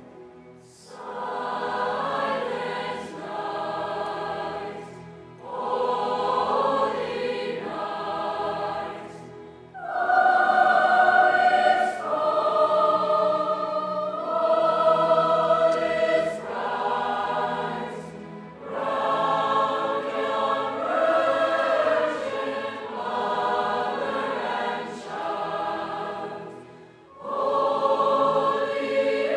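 Large mixed choir singing a Christmas carol arrangement, in phrases of a few seconds with short breaks between them.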